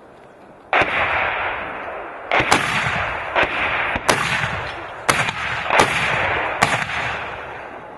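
Rapid mortar fire: about eight sharp booms in quick succession, starting about a second in, each trailed by a long rolling echo across the hills.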